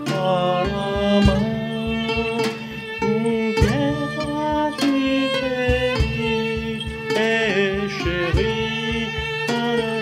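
Live violin, guitar and percussion ensemble playing. The violin carries a bowed melody with vibrato over a steady percussion beat and guitar accompaniment.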